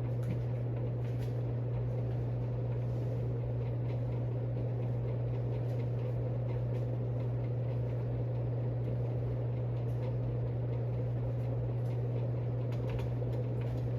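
52-inch Evergo hugger ceiling fan running on high speed: a steady low motor hum under an even rush of air from the blades. On high the fan is pretty quiet.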